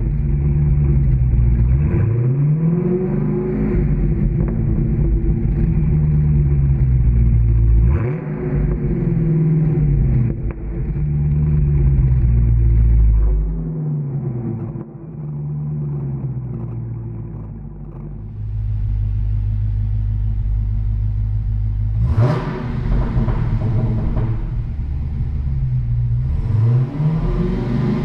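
Dodge Challenger SRT Hellcat's supercharged 6.2-litre V8 revved through its exhaust, the engine rising and falling several times before settling to a steady idle, then blipped sharply twice near the end. The recording is marred by a microphone fault and sounds dull for the first half.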